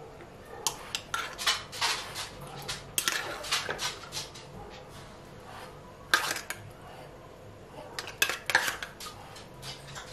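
A metal fork scraping and clinking inside an open tin of tuna as the fish is scooped out onto bowls of pasta, in several short spells of clicks with brief pauses between.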